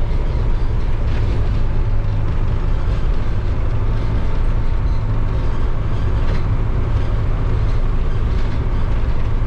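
Converted micro-bus motorhome driving slowly on a dirt road: a steady low engine drone with road rumble.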